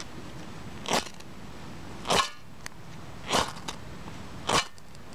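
Magnesium fire starter's spark rod struck four times, short sharp scrapes a little over a second apart, throwing sparks to light birch-bark tinder.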